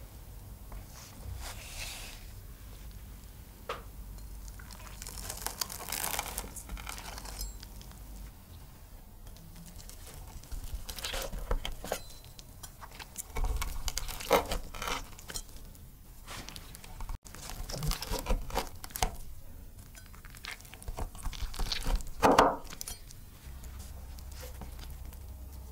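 A knife cutting through a pan-fried egg-and-cheese flatbread on a wooden board, its crisp crust crackling and crunching in a series of short, irregular strokes.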